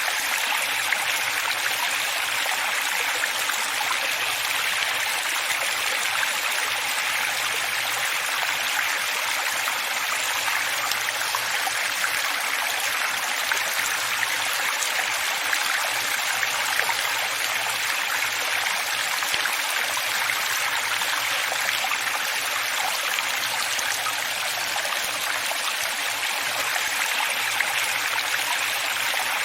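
Running water flowing steadily, an even splashing sound that sits mostly in the upper range with little low rumble and no change in level.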